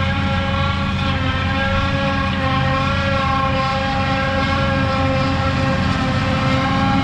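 Farm tractor running steadily under way, a low engine drone with a steady high whine over it.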